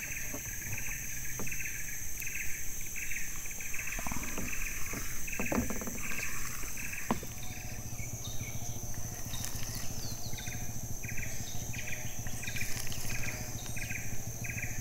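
Insects calling: a pulsed chirp repeating a little under twice a second, which stops for a few seconds midway and then resumes, over a steady high-pitched drone. A low steady hum and a few soft clicks sit underneath.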